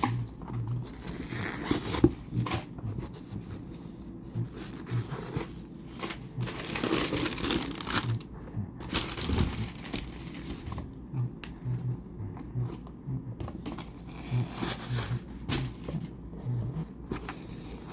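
Packaging crinkling and rustling in irregular bursts as it is handled and pulled open, with occasional tearing sounds.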